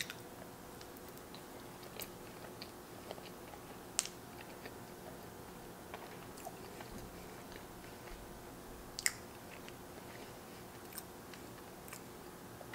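Soft chewing of a mouthful of chocolate-sauced pancake, with faint mouth clicks and smacks now and then, the sharpest about four and nine seconds in.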